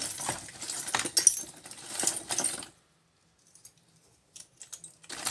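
Brass keys and small pieces of brass scrap clinking and jangling together as they are handled and sorted, for about two and a half seconds, then a few light metallic clicks near the end.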